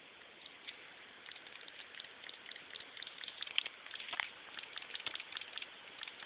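Faint, irregular clicking and ticking from an HP DV2 laptop, which the owner takes for a failing hard drive. The clicks come several times a second and grow busier after about two seconds, with one brief louder chirp about four seconds in. It is heard thin, through a cellphone's microphone.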